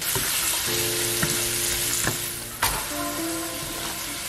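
Diced carrots and other vegetables hitting hot olive oil in a stainless steel pan and sizzling loudly as they are stirred with a wooden spatula. There are a few light clicks and one sharp knock a little past halfway.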